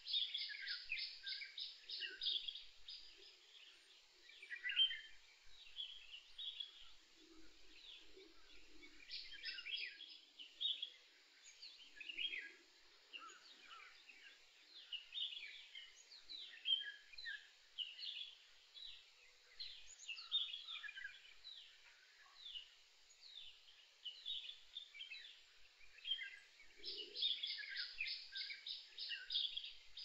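Several songbirds chirping and singing in overlapping phrases, faint and close-packed. A fast trill of evenly spaced high notes opens the stretch and comes back near the end, with scattered faint low notes in between.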